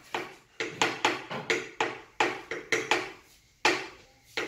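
A kitchen utensil knocking sharply and repeatedly, about a dozen strikes at two or three a second, with a short pause a little after three seconds in.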